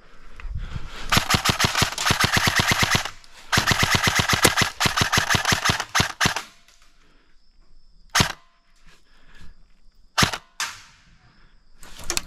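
Airsoft rifle firing on full auto: two bursts of rapid shots, each about two seconds long, then two single sharp shots a couple of seconds apart.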